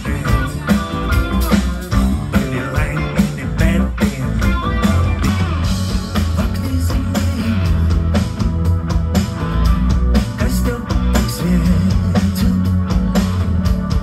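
Live rock band playing: electric bass, electric guitar and keyboards over a steady drum beat.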